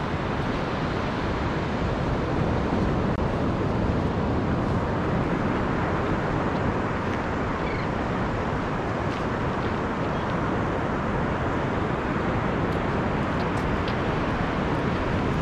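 Steady rushing noise of wind buffeting the microphone on an open beach, with surf underneath.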